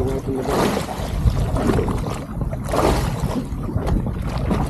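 Irregular splashing and sloshing of seawater beside a small boat as a big hooked tuna is fought at the surface close to the hull.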